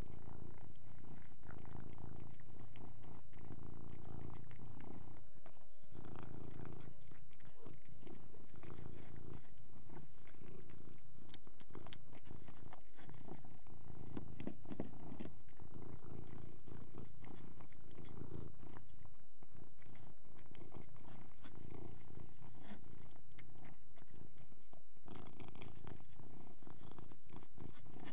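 Domestic cat purring: a continuous low rumble that pulses with its breathing, pausing briefly three times.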